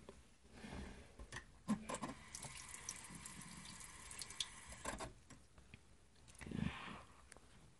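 Water jet from a shower-connected oral irrigator spraying and splattering in the mouth, with a steady hiss and many small drip-like clicks. It cuts off sharply about five seconds in, and a short rushing burst follows a second and a half later.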